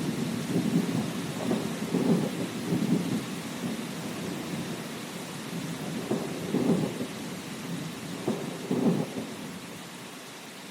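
Thunder rumbling in several low rolls over a steady hiss of rain, the rumbles growing fainter toward the end.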